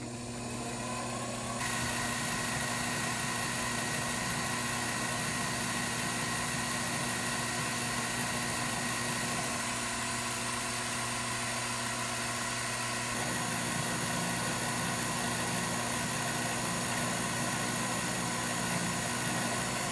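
Mini lathe running, its spindle motor speeding up over the first second or two and then holding a steady hum and whine, while a center drill in the chuck cuts a starting hole in the blank.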